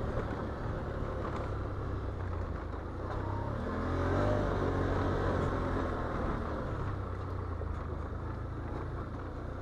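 Can-Am Outlander ATV's V-twin engine running on the trail, rising in revs about four seconds in and then settling back.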